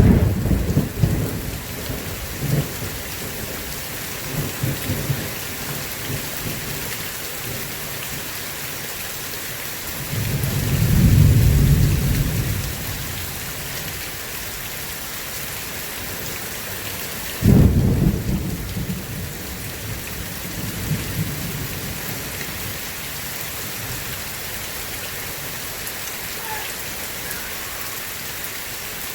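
Steady heavy rain with thunder: a sharp clap right at the start, a deep rolling rumble that swells and fades a third of the way in, and another sharp crack with a rumbling tail a little past the middle.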